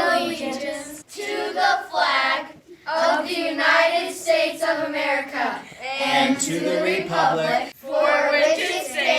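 Children singing together in short phrases separated by brief pauses.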